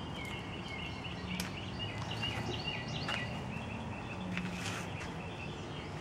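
Songbirds chirping in many short, quick calls over steady background noise, with a few faint clicks.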